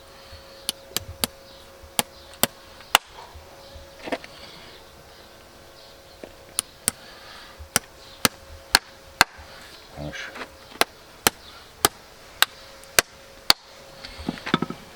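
A series of sharp, crisp strikes from farrier work on a hoof, coming in runs about half a second apart with short pauses between. A faint steady hum runs underneath.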